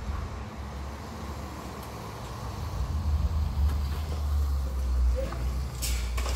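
A car engine running with a deep low rumble that grows louder about halfway through, with a hiss of tyres on wet asphalt coming in near the end.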